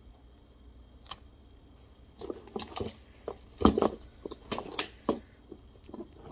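Handling of dog leashes and a harness in a fabric box: nylon webbing rustling and metal buckles and snap hooks clinking. A single click about a second in, then a busy stretch of rustles and clinks from about two seconds in, loudest near the middle.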